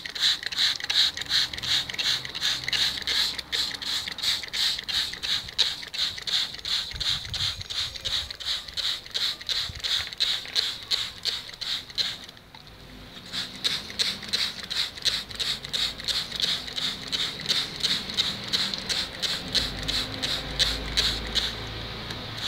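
Pump spray nozzle on a plastic bottle pressed over and over, each press a short hiss of mist, about three a second. There is a short break about twelve seconds in.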